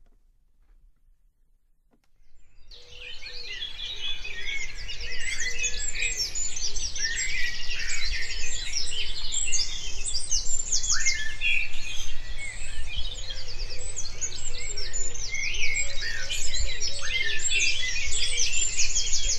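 Many songbirds singing at once, a dense chorus of overlapping chirps and trills that fades in after about two seconds of near silence.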